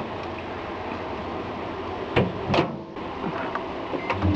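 Microwave oven running with a steady hum, with two sharp knocks a little over two seconds in, half a second apart.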